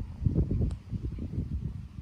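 Wind buffeting the microphone, an uneven low rumble that is strongest in the first second, with one faint click a little after half a second in.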